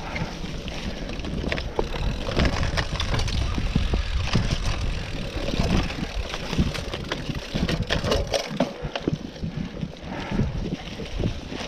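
Cyclocross bike riding over a bumpy dirt trail strewn with dry leaves: tyres rolling and crunching through the leaves, with frequent rattles and knocks from the bike over bumps and wind buffeting the microphone.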